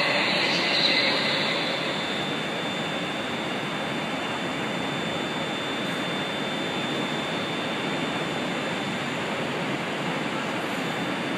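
Steady running noise of a standing ScotRail multiple-unit train, its equipment humming and hissing evenly, with a faint steady high whine; a little louder for the first second or two.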